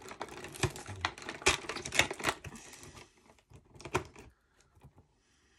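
A cardboard advent calendar door and its packaging being opened by hand: a quick, irregular run of clicks and crackles that stops about three seconds in, with one more short flurry about a second later.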